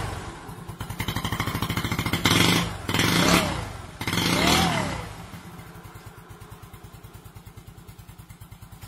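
Motorcycle engine idling with a regular low pulse, revved hard three times in the first half, the revs rising and falling, then settling back to a steady idle.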